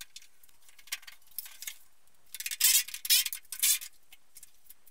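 A cluster of short, scratchy bursts about halfway through as the BMW E30's bonnet is lifted on its freshly painted, unlubricated hinges, stiff enough that it barely moves.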